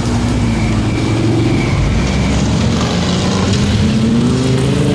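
Nissan GT-R's twin-turbo V6 accelerating away. The engine note climbs, drops once about two seconds in as it shifts up, then climbs again.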